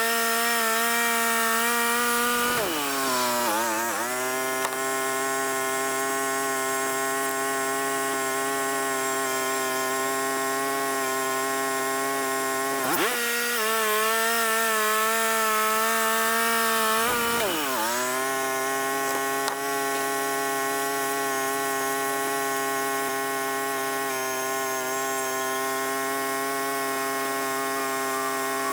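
Wood-Mizer LT35 band sawmill's engine running steadily while sawing white oak, its pitch dipping briefly and recovering three times.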